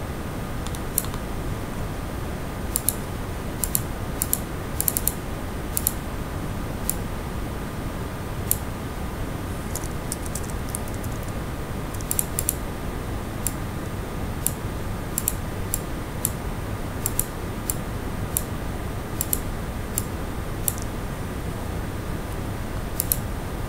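Irregular sharp clicks of a computer mouse and keyboard, singly and in quick pairs about once a second, over a steady background hiss.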